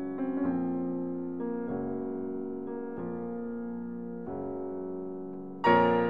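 Background piano music: slow, sustained chords changing every second or so, with a louder chord near the end.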